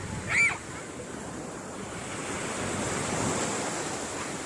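Sea waves washing onto a beach, with wind buffeting the microphone; the wash swells a little past the middle. A brief high-pitched cry sounds about half a second in.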